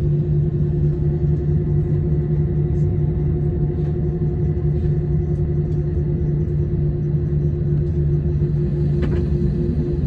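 Airliner engines running steadily as the plane prepares to take off: a loud, even drone with a steady low hum and rumble. A faint click comes about nine seconds in.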